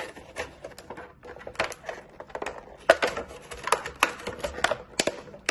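Clear plastic blister packaging crinkling and crackling as it is flexed and pried apart by hand to free the speaker, an irregular run of sharp crackles that thickens after the first second or so.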